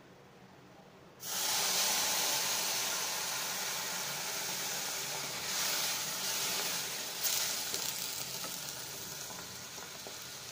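Water poured into a hot pan of dry-roasted, golden-brown semolina (sooji), hissing and sizzling as it hits the hot grains. The sizzle starts suddenly about a second in, loudest at first, then slowly dies down as the mixture is stirred, with brief swells as more water goes in.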